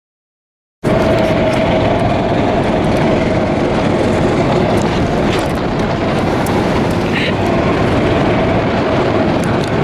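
Golf cart driving fast over a dirt and grass track, with heavy wind noise on the microphone over the cart's running and tyre noise and a faint steady tone underneath. It starts abruptly about a second in, after silence.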